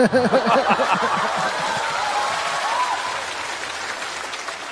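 Studio audience laughing and applauding. The laughter is strongest in the first second or so, and the applause slowly fades toward the end.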